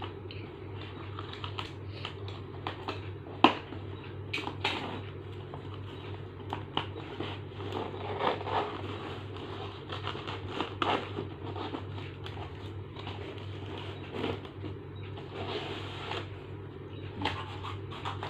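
Unpacking by hand: scattered clicks, taps and rustles of packaging being handled and opened, over a steady low hum.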